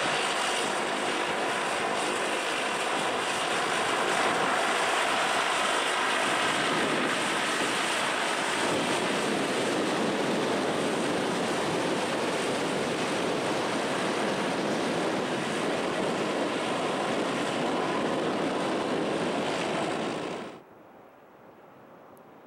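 Bombardier Dash 8-102's twin turboprop engines and propellers running loud and steady as the aircraft taxis close by, the sound growing heavier and lower about eight seconds in. Near the end it cuts off abruptly, leaving faint wind noise.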